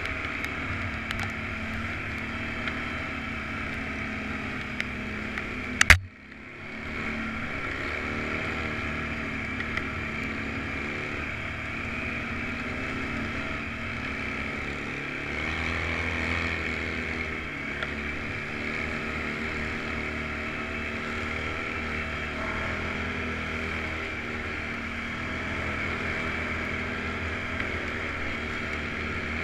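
Off-road vehicle engine running steadily under way, picking up briefly about halfway through. A sharp knock about six seconds in, after which the sound drops out for a moment.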